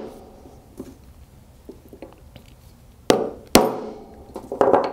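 Two sharp, ringing metal-on-metal strikes about half a second apart, a small ball-peen hammer tapping a drift punch to drive a ball bearing flush into the air port of a pneumatic air control valve block, sealing the port off. Lighter knocks of tools being handled follow near the end.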